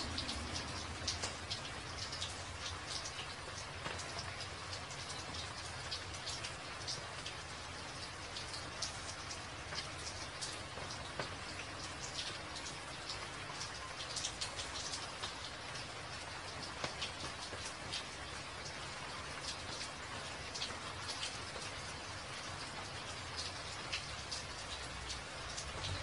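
Steady rain falling on a wet, puddled hard surface: a continuous hiss with many close individual drops ticking and splashing.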